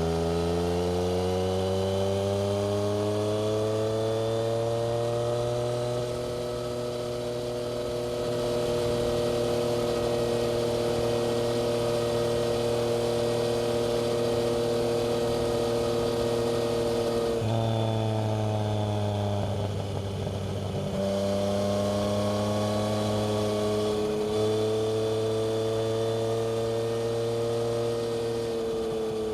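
Yamaha MT-09's inline three-cylinder engine through a Black Widow aftermarket exhaust, heard from the moving bike. The revs climb over the first few seconds and hold steady, then drop about two-thirds through, dip briefly, and climb again before falling near the end.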